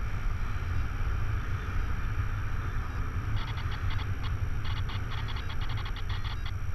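Wind rushing over the camera's microphone in paraglider flight, a steady low rumble. From about three and a half seconds in, a rapid, irregular high clicking joins it.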